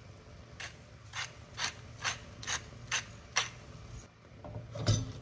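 Pepper mill being twisted over a pan, seven short grinding crunches at about two a second, followed near the end by a louder knock.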